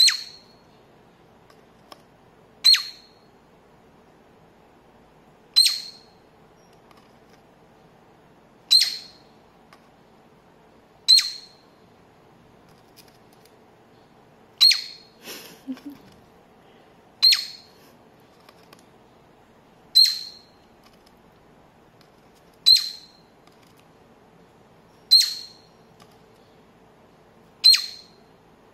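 Cockatiel giving short, sharp chirps, one about every two and a half to three seconds, eleven in all.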